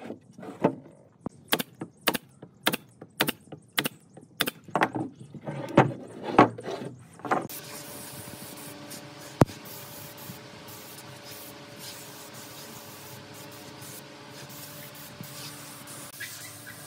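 A series of sharp knocks, about two a second, for the first seven seconds or so. They then give way to a steady hiss with a faint hum, broken once by a single sharp click.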